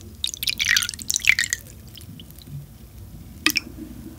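Makgeolli poured from a bottle into a stemmed glass, splashing and bubbling, loudest in the first second and a half and quieter after. A single short, sharp tap about three and a half seconds in.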